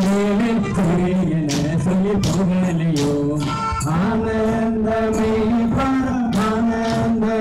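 Live kaliyal folk-dance music: a man singing a held, gliding melody over percussion with frequent sharp strikes.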